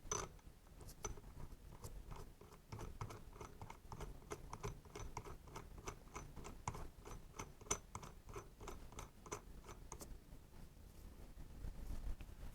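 Flywheel puller being worked with a hand tool on a small motorcycle engine: a steady run of light metallic clicks, about three a second, that stops about ten seconds in.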